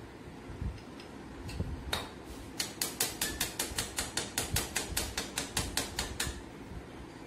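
Steel mason's trowel tapping a marble border strip in quick succession, about five sharp taps a second for roughly four seconds and starting about two and a half seconds in, bedding the strip level into the mortar.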